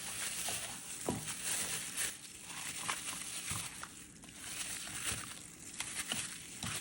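Hands massaging marinade into raw chicken thighs: soft, irregular wet squishing and rustling with small clicks.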